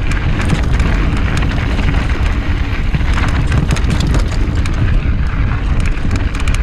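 Trek mountain bike rattling and clattering as it rides fast over rocks, with tyre rumble and wind buffeting the camera microphone, and many sharp clicks throughout.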